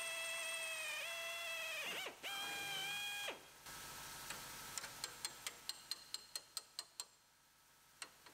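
Pneumatic spot weld drill spinning at speed as it drills out the spot welds holding a small sheet-metal bracket, dipping briefly in pitch about two seconds in and stopping after about three seconds. A faint, even ticking of about four a second follows.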